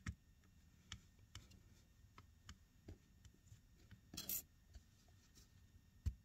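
Faint small clicks and taps of fingertips pressing on the glass and metal frame of an opened iPad Mini, with a brief scrape about four seconds in.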